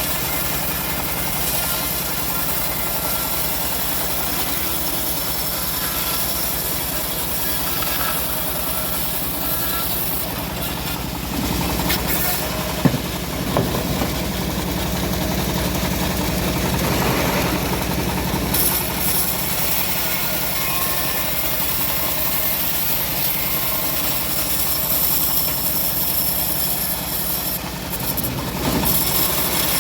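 Engine of a homemade bandsaw mill running steadily, with a single sharp knock about thirteen seconds in.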